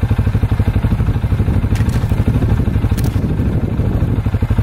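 Strong wind buffeting the microphone: a loud, low, rapidly pulsing rumble, with a couple of sharp clicks about two and three seconds in.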